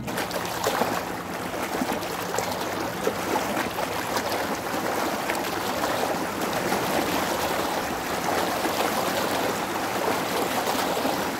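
Small waves lapping and splashing against the rocks at the water's edge: a steady watery wash with many small splashes.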